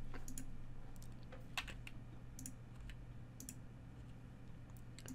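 Sparse clicking from a computer mouse and keyboard, several clicks in quick pairs, over a low steady electrical hum.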